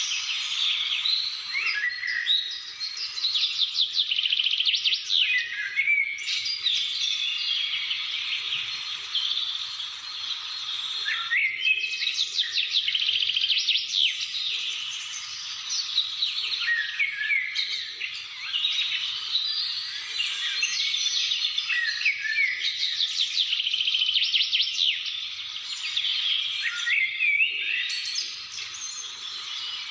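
Several wild birds singing and chirping at once, a dense chorus of rapid trills and quick, repeated chirps that overlap throughout.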